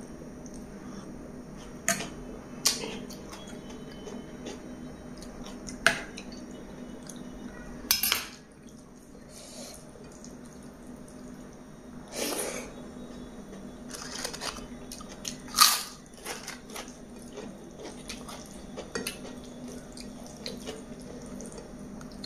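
Close-up eating sounds of biryani and raita: wet chewing and mouth sounds with scattered sharp clicks and taps, the loudest about 16 seconds in, over a faint steady hum.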